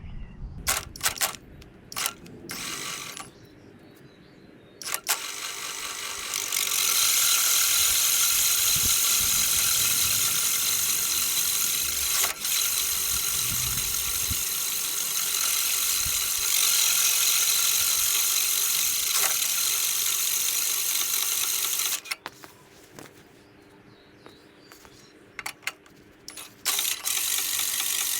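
Reel of an Allett 10-blade cylinder mower turned backwards during backlapping with lapping paste: a steady mechanical whirr with ratcheting clicks, running for about sixteen seconds. A few clicks and knocks come before it, and it starts again near the end.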